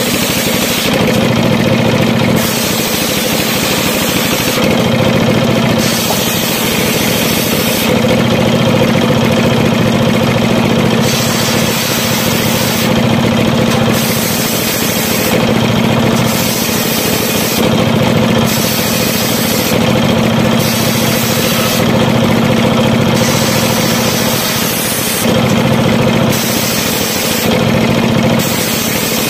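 Large circular sawmill blade, driven by a 24 hp diesel engine, ripping mahogany boards. The engine runs steadily under heavy load. The saw's sound changes in patches of one to three seconds, over and over, as boards are fed through the blade.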